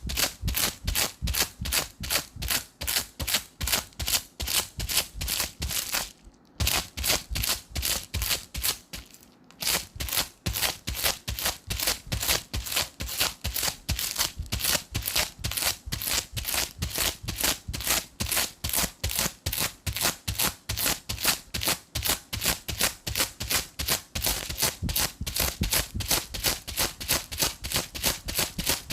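Adhesive tape dabbed onto sticky glue residue and peeled away again and again to lift it off. Each peel is short and sharp, about three a second, with two brief pauses, at about six and nine seconds in.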